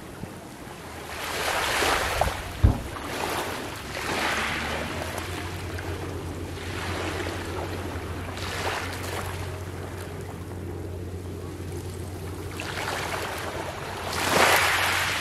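Small waves lapping and washing up a shore of coral rubble and pebbles, swelling and easing every few seconds, the largest wash near the end. A short low thump about two and a half seconds in.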